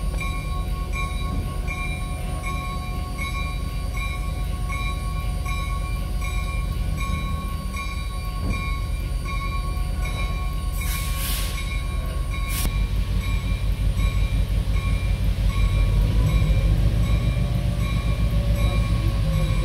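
EMD SW8 diesel switcher and 4-8-4 steam locomotive Reading 2102 running at rest: a steady low locomotive rumble with thin steady whining tones over it. About eleven seconds in, a brief loud hiss of steam being let off, and the rumble grows louder in the last few seconds.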